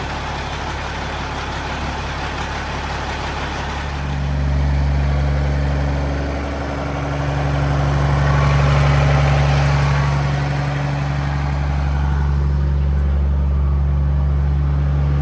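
Freshly overhauled diesel engine of a Peterbilt glider semi truck running after its first start. The engine grows louder about four seconds in, then eases and swells again a couple of times.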